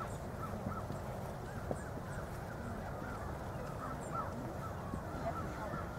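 Birds calling, a flock's short overlapping honking calls repeating throughout, over a steady low background noise.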